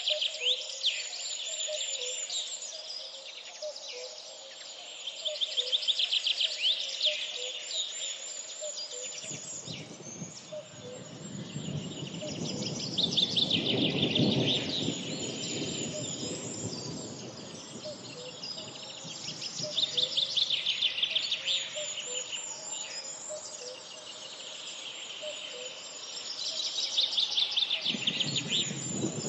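Songbirds singing, fast trilled phrases repeating every few seconds, over a soft regular peeping. A low rushing noise comes in about nine seconds in.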